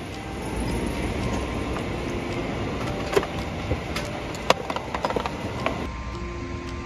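Pickup truck crawling over a rough, muddy forest trail: steady engine and tyre rumble with the body and load rattling, and several sharp knocks over bumps about three and four and a half seconds in.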